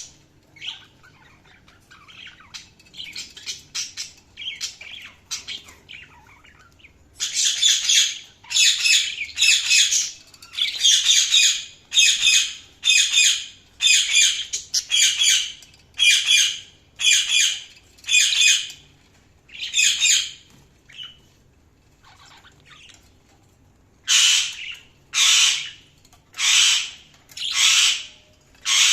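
Budgerigars chattering softly, then breaking into loud repeated squawking calls about one a second. The calls pause briefly, then start again near the end.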